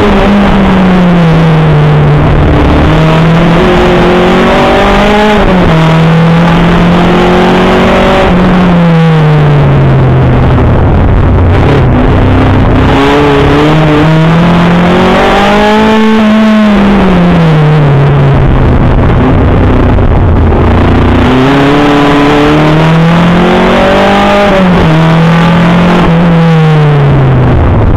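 Škoda Felicia 1400's 1.4-litre four-cylinder engine driven hard through a rally stage, heard from inside the car. The engine note climbs under acceleration and drops away on lifting off, over and over, with road and tyre noise underneath.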